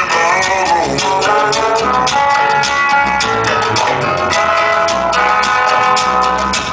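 Latin dance music with a steady drum beat and brass, played loud over a sonidero sound system.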